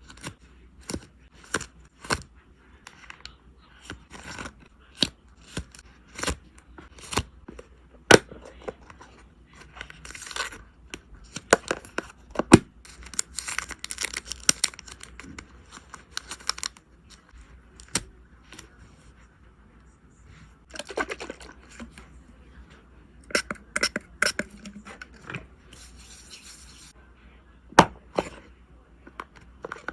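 Hands packing photocards: a run of sharp clicks and taps from handling packing materials, with several stretches of sticky tape being pulled off its roll, a little over a second each.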